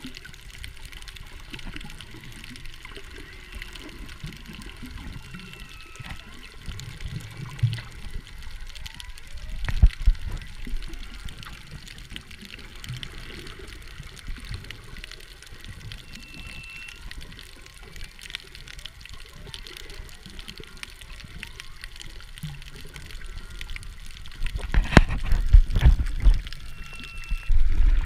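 Humpback whale song heard underwater: faint moans and short rising and falling whistles over a steady crackle of snapping shrimp. Louder rushes of water against the microphone come about ten seconds in and again near the end.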